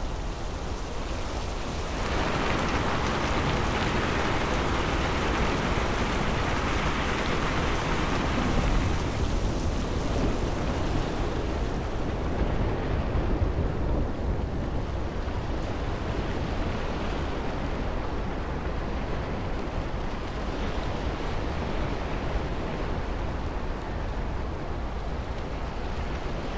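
Steady rain-storm noise: a continuous rain hiss over a low rumble. It grows louder about two seconds in, and the high hiss drops away about halfway through.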